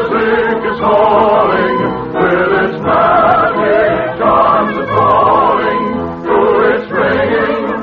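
Choir singing a waltz with orchestra, its phrases swelling and easing about once a second.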